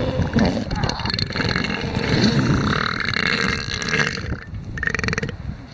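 Southern elephant seal calling with a rough, rapidly pulsed sound: one long stretch, then a shorter burst after a brief break near the end.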